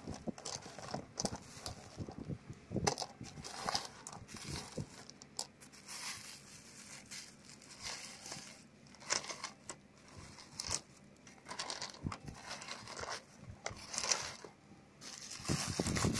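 Thin plastic bag crinkling while rough white stones click and knock against each other as a hand rummages through them, in irregular clicks and rustles that grow louder near the end.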